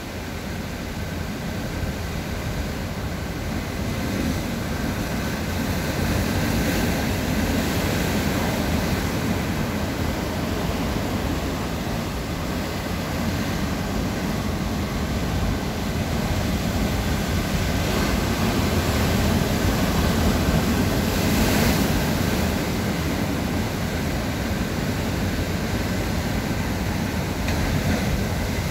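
Rough sea: heavy surf breaking and churning over shoreline boulders, a continuous rumbling wash that swells louder and eases off a few times as sets come in.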